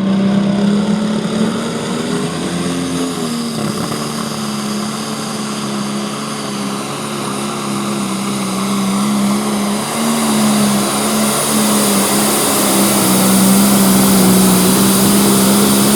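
Pro stock pulling tractor's turbocharged diesel engine running flat out, pulling the sled down the track: a loud, steady engine drone with small dips in pitch, and a high whine that grows louder toward the end.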